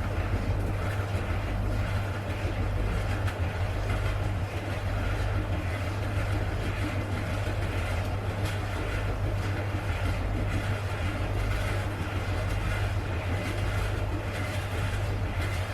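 Siemens condenser tumble dryer running, a steady low hum with a rough grinding, scraping noise from the turning drum over it. The grinding is the fault being dealt with: the drum grinds in use.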